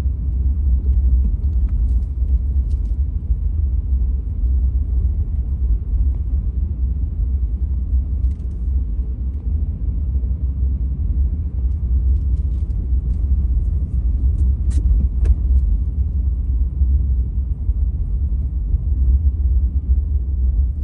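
Steady low rumble of a car driving over unplowed, snow-packed road, heard from inside the cabin, with a few faint clicks.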